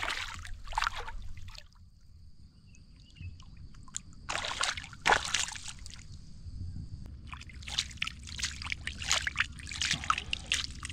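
A hooked hampala barb thrashing in shallow water at the shoreline, splashing in bursts: at the very start, about four to five seconds in, and repeatedly over the last few seconds.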